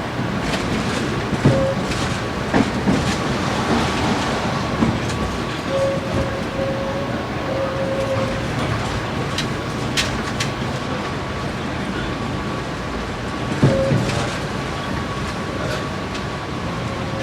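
Tram running on rails: a steady rumble with a few sharp clacks, brief short tones here and there, and a faint steady whine.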